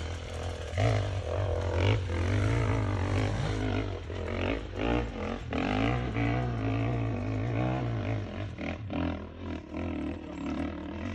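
Dirt bike engine running under riding load, its pitch rising and falling as the throttle is worked, then easing off for the last few seconds.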